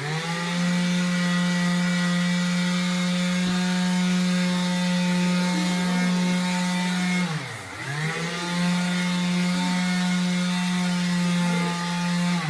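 A small electric motor starts up and runs at a steady high speed with a strong hum. About seven and a half seconds in it briefly slows and speeds back up, and it winds down near the end.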